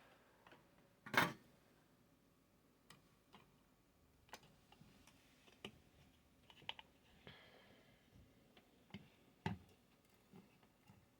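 Light, scattered clicks and small knocks of a heat gun's parts and hand tools being handled during its power cord replacement, with a sharper knock about a second in and another near the end.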